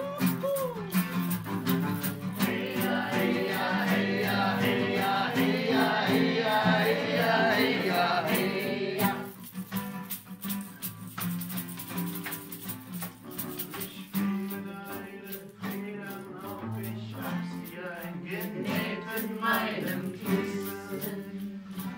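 A small group singing a folk song together to two strummed acoustic guitars. The singing is fullest at first and drops back about nine seconds in, leaving mostly the guitars with quieter voices.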